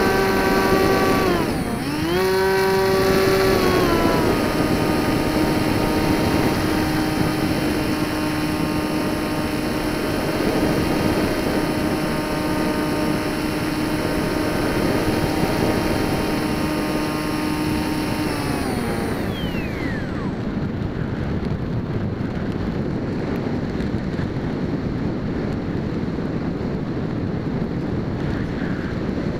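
Electric motor and pusher propeller of a Multiplex EasyStar RC plane, heard from a camera riding on the plane: a steady high-pitched buzz that dips briefly about two seconds in and comes back, then winds down as the throttle is cut about two-thirds of the way through. After that only wind rushes over the microphone as the plane glides.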